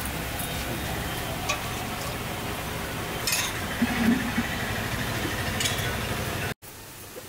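An engine idling steadily, with a few sharp clinks of steel serving utensils. The sound cuts off abruptly near the end to a much quieter background.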